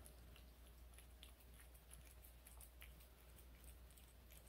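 Faint wet clicks of a cat licking and chewing raw meat, over a low steady hum.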